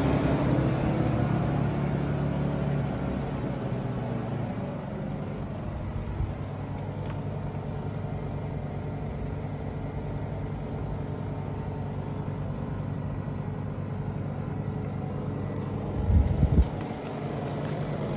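Portable generators running steadily on natural gas from the house's gas line, a continuous engine hum that eases a little after about three seconds. About sixteen seconds in, a brief loud low rumble cuts across it.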